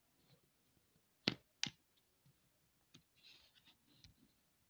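Safety lever on the slide of a Beretta 9mm pistol pushed down to lock it: two sharp metallic clicks about a third of a second apart, then a fainter click about a second and a half later.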